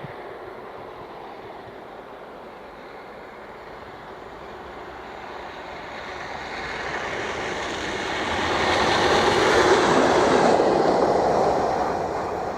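Diesel locomotive-hauled train passing by on the line: its noise builds steadily, is loudest about nine to eleven seconds in, then fades.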